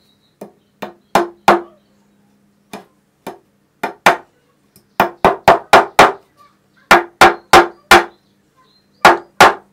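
Brass-headed fret hammer tapping a fret wire down into its slot in a guitar fretboard: about twenty sharp taps in bursts of several, each with a short ring, coming four or five a second in the later bursts.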